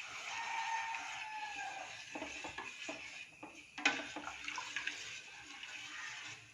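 A spoon stirring water mixed with spice powders in a pan, the liquid swirling, with a sharp clink of the spoon against the pan about four seconds in.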